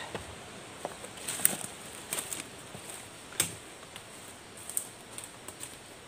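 Footsteps on a forest floor: dry leaves and twigs crackling underfoot in an irregular scatter of sharp clicks, the loudest about a second and a half in.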